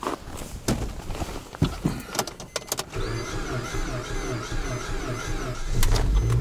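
Rustling and clicks of someone settling into a car seat, then about three seconds in the Suzuki's starter cranks the engine with a rhythmic whirr, about three pulses a second. The engine catches and runs near the end. It is a cold start after five days sitting in minus 25 degree weather.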